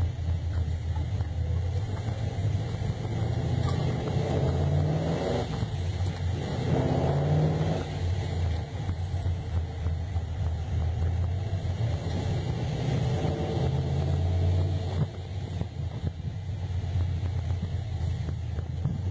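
Chevrolet Caprice's engine and exhaust heard from inside the cabin while driving: a low steady rumble whose note rises several times as the car accelerates, the first two about four and seven seconds in.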